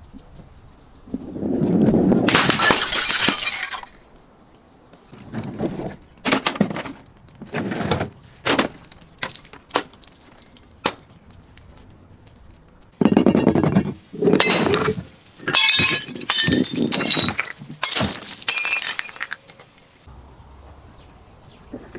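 Glass being crushed and broken: a long crunching spell, then a run of sharp cracks and clinks, then a series of loud crunches in quick succession.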